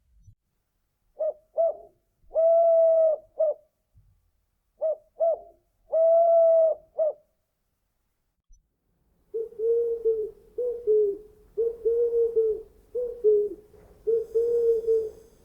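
Owl hooting: two identical phrases of four clear hoots, two short, one long and one short, a few seconds apart. From about nine seconds in, a different call takes over: a steady run of slightly lower, closely spaced hoots, each dipping in pitch at its end.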